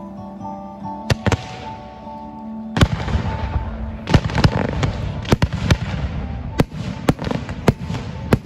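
Fireworks display: music with held notes and two sharp reports about a second in, then from about three seconds in a dense, irregular run of shell launches and bursts with crackling over the music.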